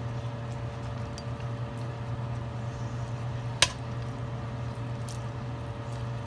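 Metal tongs stirring rice vermicelli in a stainless-steel pot of boiling water, with one sharp clink of the tongs against the pot about three and a half seconds in, over a steady low hum.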